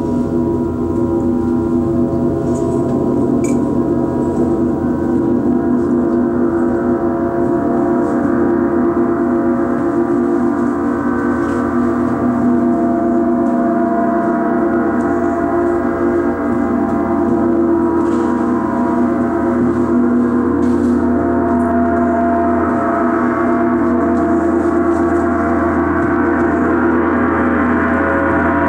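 Large Paiste gongs played continuously, a steady dense wash of many overlapping ringing tones that swells slightly brighter near the end.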